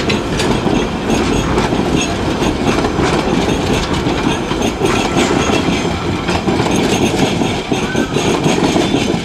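Narrow-gauge passenger carriages rolling past at close range: a steady rumble of wheels on rail, with a rapid clickety-clack of wheels over the rail joints.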